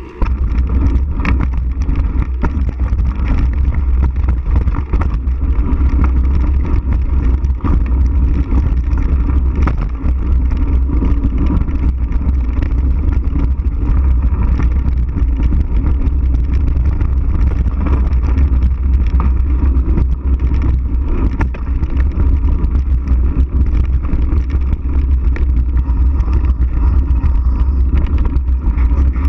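Mountain bike rolling fast down a dirt and gravel trail, heard from a camera mounted on the bike: a loud, steady rumble of wind on the microphone and rolling tyres, with many small clicks and rattles from the bike.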